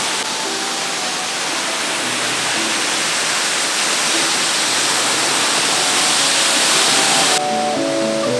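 Waterfall pouring down a rock face and splashing onto paving, a steady rushing hiss. Soft music plays underneath, and the water noise drops away sharply about a second before the end as the music comes forward.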